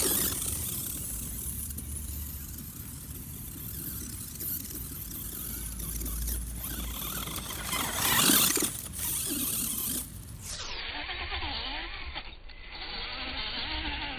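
Electric RC sand buggy running on a 3S LiPo, driven hard through loose sand: its motor and spinning tyres throw up sand in a steady rushing spray. The spray is loudest about eight seconds in as the buggy passes close, then it fades to a duller, quieter sound as the buggy moves off.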